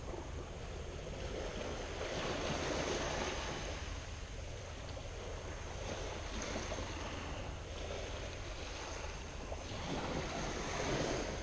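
Sea waves washing in with some wind, a steady rush that swells a little every few seconds.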